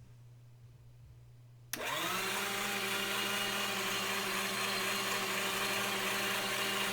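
Hamilton Beach electric meat grinder's motor switched on a little under two seconds in, winding up to speed within a fraction of a second and then running with a steady whine.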